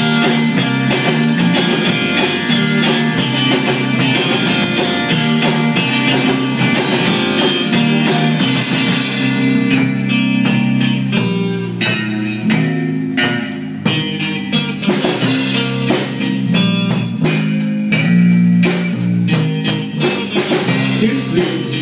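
A small rock band playing live without vocals: electric guitars and a drum kit. About halfway through the drumming thins out, then comes back as separate, spaced hits.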